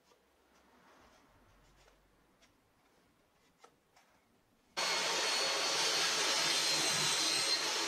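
Faint light taps for the first few seconds, then about five seconds in a woodworking power tool's motor comes in suddenly at full loudness and runs steadily, a loud even hiss with a thin high whine on top.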